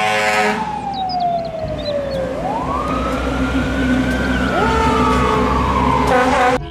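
Fire engine sirens wailing: one siren's pitch slides down, winds back up and slowly falls, and a second siren joins about four and a half seconds in, over the low rumble of the trucks' engines. A brief horn blast sounds at the start.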